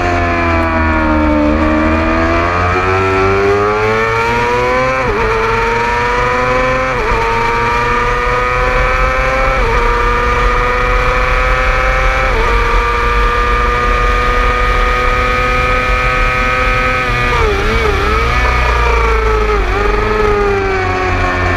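600cc race motorcycle engine on track: after a brief drop in revs it accelerates hard through the gears, the pitch climbing and dropping back at four quick upshifts, holds at high revs, then falls through several downshifts with blipped revs under braking near the end. Heavy wind rumble on the onboard microphone.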